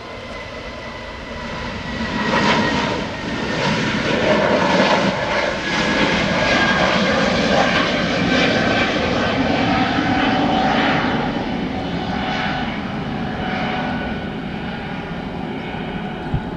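Airbus A320-family twin-jet airliner at take-off thrust as it lifts off and climbs away. The jet engine noise builds over the first two seconds, stays loud with a steady whine through the middle, then slowly fades as the plane climbs off.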